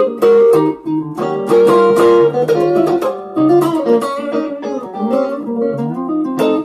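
Squier Stratocaster-style electric guitar played through a Zoom G1on multi-effects pedal, soloing over a B flat blues: phrases of picked single notes, with some notes held.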